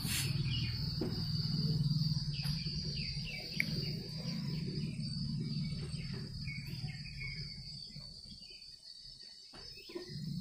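A whiteboard duster scrubbing back and forth over a whiteboard, a rough rubbing with small squeaks that dies away about seven seconds in, over a steady high-pitched background whine.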